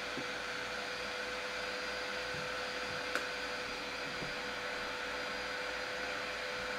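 Illuminage Precise Touch handheld laser hair-removal device switched on and held to the skin, its fan running with a steady whirring hiss and a constant hum. There is a single faint click about three seconds in.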